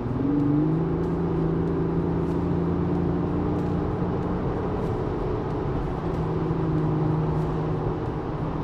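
2024 Lexus GX 550's twin-turbo V6 pulling as the SUV gathers speed, heard from inside the cabin over road and tyre noise. Its note rises in pitch in the first second, then holds steady.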